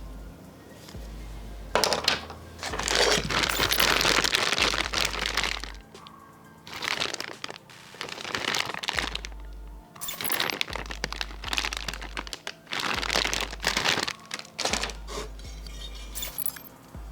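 Background music with a steady bass line, over loud, repeated bouts of crinkling plastic and small parts clattering: bagged RC buggy kit parts being handled and unpacked.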